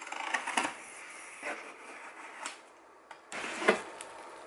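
Box cutter slitting the packing tape on a cardboard box, and the box being handled, with scattered knocks and a louder cardboard rustle a little after three seconds in.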